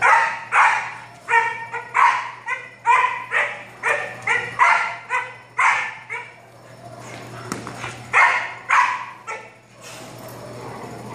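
Malinois puppy barking in rapid, repeated barks, about two a second, at a decoy during protection-training agitation. The barks pause briefly about six seconds in, come again two or three times near the eight-second mark, then stop.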